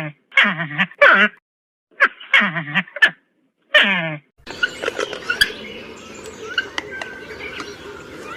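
An animal calling over and over in short pitched calls with a wavering, quavering tone, six in all with short gaps between them. About four seconds in, this gives way abruptly to an outdoor background with small bird chirps and a few clicks.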